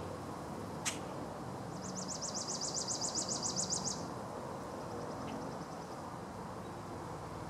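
A small songbird's fast, high trill of about nine quick notes a second, lasting about two seconds from roughly two seconds in, followed by a fainter trill, over steady outdoor background noise. A single sharp click about a second in.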